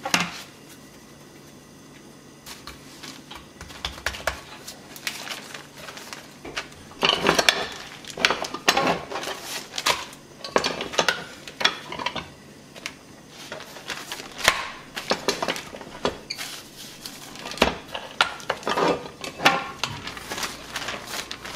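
Aluminium tortilla press being worked: irregular knocks and clinks of the metal plates and hinge, with rustling of the plastic liner as a ball of masa is pressed and the flattened tortilla is peeled off.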